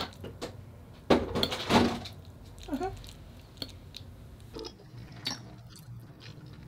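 Tableware at a meal: scattered clinks and knocks of glasses, dishes and cutlery, with a louder clatter about a second in.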